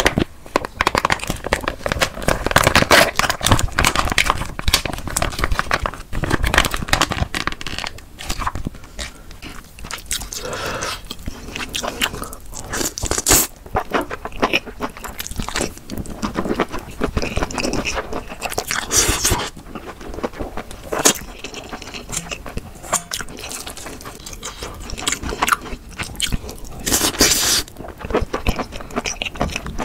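Close-miked eating of noodles in a thick spicy sauce: wet slurps and chewing, with chopsticks scraping a stainless steel bowl.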